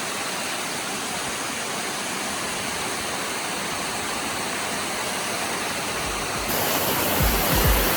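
Waterfall rushing with a steady, even hiss of falling water. About six and a half seconds in the sound shifts and grows louder, with a few low thumps near the end.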